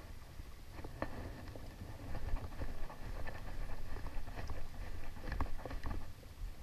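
Irregular light clicks and taps from handling a spinning reel and rod while retrieving a jig, over a steady low rumble.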